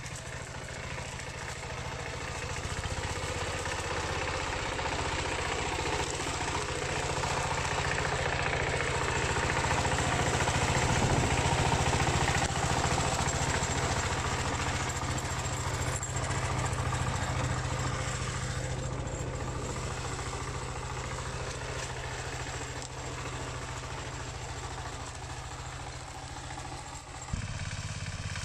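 Diesel engine of a two-wheel hand tractor running steadily, growing louder toward the middle and fading again.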